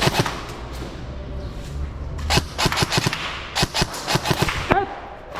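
Airsoft guns firing: a couple of sharp shots at the start, then a run of quick single shots and short bursts from about two seconds in until nearly five seconds in.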